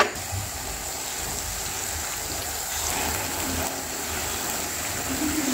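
Onions and peppers frying in oil in a pan, a steady sizzle, as diced raw chicken is tipped in.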